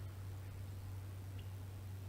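Steady low hum and hiss from an outdoor nest camera's microphone, with one faint tick about a second and a half in.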